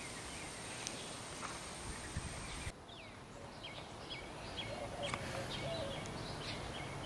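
Outdoor ambience with a faint steady hiss that changes abruptly about three seconds in; from then on, birds chirping with many short, repeated calls.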